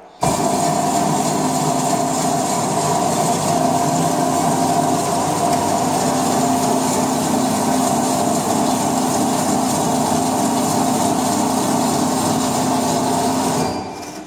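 Şahveli GDM-06 tantuni dicing machine running, its motor-driven blades dicing julienned liver into small tantuni cubes. A steady, loud machine hum with a noisy cutting wash that starts abruptly and winds down near the end.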